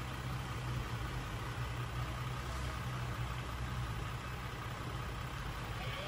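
Pickup truck's engine running steadily at low revs as it crawls slowly over a muddy bank, a constant low hum with no revving.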